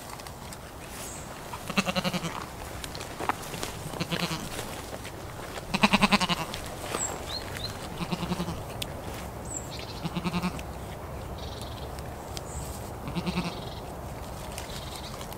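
Goat bleating over and over: about six wavering calls a couple of seconds apart, the loudest about six seconds in.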